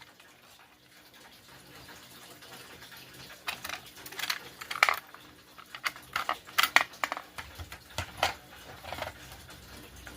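Simplex 4251-30 T-bar fire alarm pull station being reset by hand: a series of sharp clicks and clacks as its parts are moved and latched back into place, starting a few seconds in.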